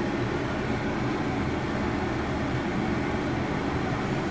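Steady low mechanical hum and rumble with no distinct events.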